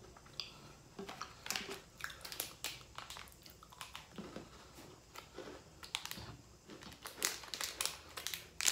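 Plastic Goriorio biscuit wrappers crinkling as they are handled, mixed with crunchy chewing of the cream sandwich biscuits, in a scattered series of short crackles and crunches.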